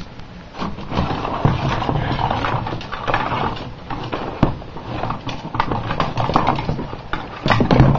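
Irregular knocking, clicking and clattering of fire alarm devices being handled and shifted around, with a louder clatter near the end.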